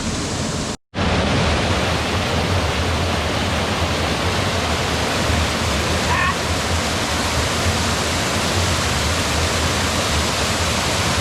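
Waterfall rushing: a loud, steady hiss of falling water. It cuts out for a split second just under a second in, then carries on unchanged.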